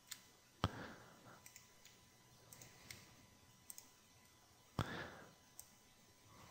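Faint computer mouse clicks: two distinct clicks about four seconds apart, the first less than a second in and the second near the end, with a few softer ticks between them.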